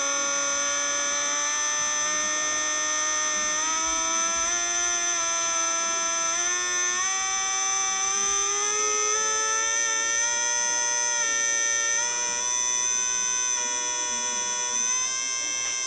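Electrical whine of a Lawton pulse circuit driving a water fuel cell through a step-up transformer and bifilar chokes: a steady buzzing tone with many overtones. Its pitch climbs slowly for several seconds, then shifts in small steps near the end as the pulse timing is adjusted.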